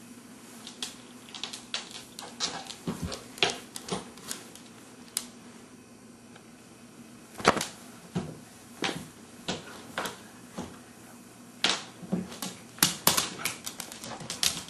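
Irregular sharp clicks and taps on a hardwood floor from a dog's claws and a baby moving about on it, coming thicker near the end.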